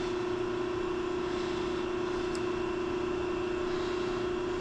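Steady hum of a running electric motor: a single droning tone over a low hiss, with one faint tick about halfway through.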